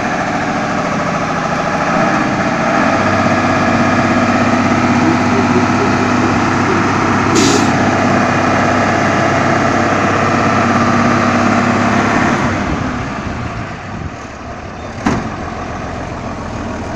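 A truck's engine running steadily. It gets louder about two seconds in and dies down about three-quarters of the way through. There is a short hiss of air about halfway through and a sharp knock near the end.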